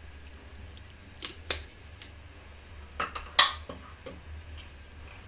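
Kitchen handling sounds: a plastic vinegar bottle and a ceramic salad bowl give a few sharp clicks and knocks, the loudest about three and a half seconds in.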